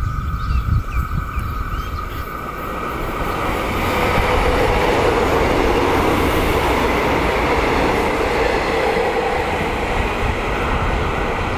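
A diesel multiple-unit express train passing through the station without stopping. Its rushing rail and engine noise builds over the first few seconds as it draws near, then holds steady while the carriages run past the platform close by.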